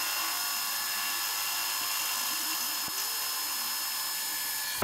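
Metal lathe spinning a propeller while a 12 mm drill bit in the tailstock bores out its hub: a steady, high-pitched machining sound.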